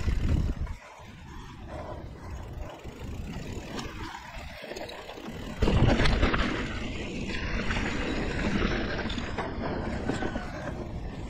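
Wind rushing over a chest-mounted action camera, mixed with the rolling tyre and trail noise of a 2017 Liv Pique 3 mountain bike on dirt single-track. There is a loud burst at the very start, and the noise jumps up again about six seconds in and stays loud.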